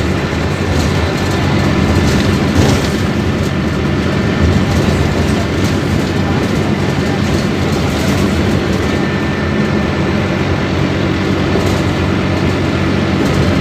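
Scania K250UB city bus's rear-mounted five-cylinder diesel running steadily under way, a low, even drone over road rumble, with a few short clicks and rattles.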